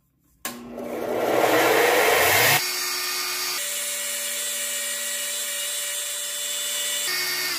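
Porter-Cable benchtop disc sander switched on about half a second in, its motor spinning up, with a wooden dowel end sanded against the spinning abrasive disc. A little over two seconds in the gritty grinding drops away abruptly, leaving a steady motor hum.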